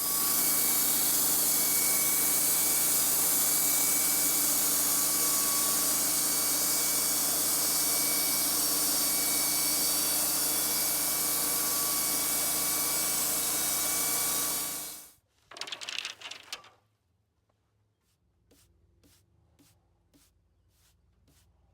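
Wood-Mizer LT-35 portable band sawmill running steadily, its blade ripping lengthwise through a stack of wooden panels. The sound stops abruptly about fifteen seconds in. A short burst of noise and a few faint clicks follow.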